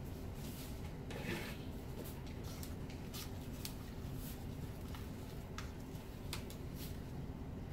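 Steady low hum with scattered faint light clicks and taps, as of small objects being handled on a work table.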